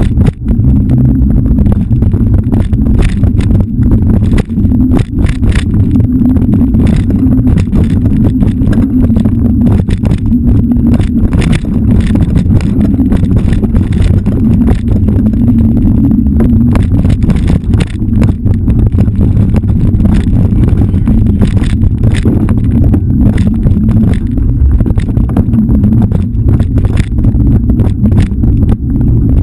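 Wind buffeting an action camera's microphone as a steady low rumble, with many sharp rattles and knocks from riding fast over a bumpy dirt forest trail.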